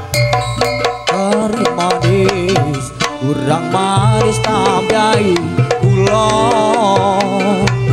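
Reog campursari music: Javanese hand drums keep a busy, steady rhythm. From about a second in, a wavering melody line with trills plays over them.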